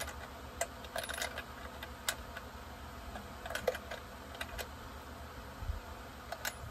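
Light, scattered metallic clicks and taps of small parts and tools being handled while reassembling an Echo 7310 chainsaw by hand, about eight short clicks spread unevenly over the few seconds.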